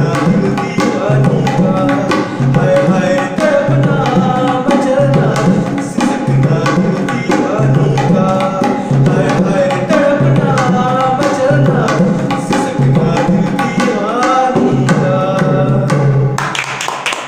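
A man singing a devotional-style song while accompanying himself on tabla. Steady rhythmic strokes on the two drums, deep booming bass-drum strokes under sharper ringing ones, carry the beat beneath his voice. Both tail off in the last second.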